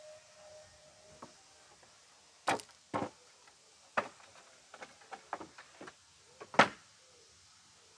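The last of a steam locomotive's whistle fades out in the first second. Then come about eight sharp, irregularly spaced knocks and clacks close by, the loudest near the end.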